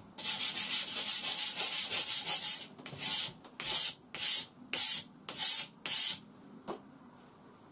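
A small hand-held block scrubbed back and forth on an old worn abrasive grinder belt wetted with water. It gives a fast run of rasping strokes for about two and a half seconds, then six slower, separate strokes.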